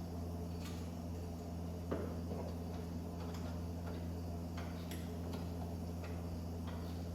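Steady low hum with scattered faint ticks and one sharper knock about two seconds in.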